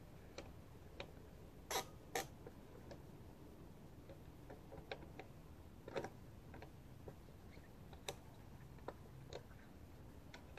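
Scattered, irregular clicks and light metallic taps, about a dozen, the sharpest about two seconds in and around six seconds. They come from hand tools on the connectors at the top of a wooden power pole, where a lineman is tightening a loose connection that had bad contact.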